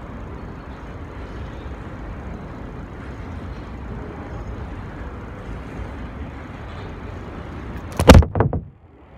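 Steady rumble of a grain train's covered hopper cars rolling across a steel truss bridge. About eight seconds in, a few loud knocks from the phone being handled, then it goes quiet.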